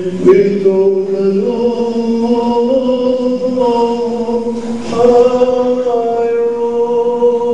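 Church liturgical chant sung by male cantors in long notes, each held a second or more and stepping from one pitch to the next. It is sung just before the Gospel reading in the wedding service.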